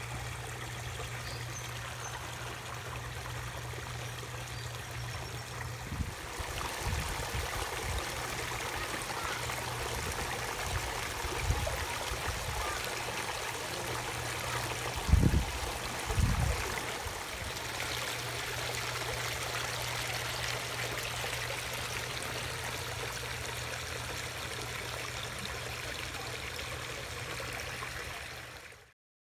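Water spilling over the rocks of a garden pond's water feature, a steady even rush of flowing water. A few low thumps come around the middle, and the sound cuts off shortly before the end.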